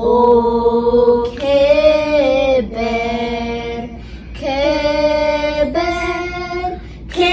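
Children singing an Amharic hallelujah worship song together in unison, in long held notes that step from one pitch to the next.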